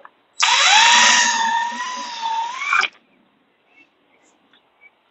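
Power drill with a twist bit drilling out a rivet that holds the A-pillar molding: the motor whine rises as it spins up, holds through the cut for about two and a half seconds, then stops suddenly, followed by a few faint ticks.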